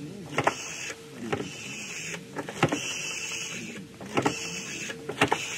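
A number being dialled on a rotary telephone: the dial whirs back with clicks several times in a row, over a faint steady tone.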